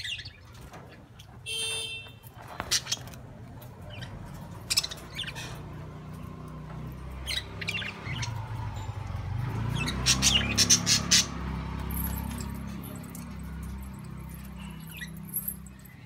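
Pet budgerigars chirping and squawking in short, scattered calls, busiest about ten to eleven seconds in, over a low rumble that swells in the middle.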